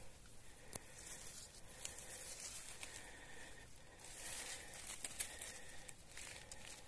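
Faint rustling and crinkling of leaf litter on a forest floor, growing a little louder about four seconds in, with a few sharp clicks.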